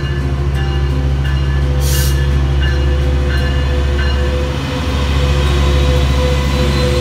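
Metrolink Siemens Charger F125 diesel locomotive pulling out and passing close by, its Cummins QSK95 engine running with a loud, steady low drone. A bell rings about every two-thirds of a second through the first few seconds. A short burst of hiss comes about two seconds in.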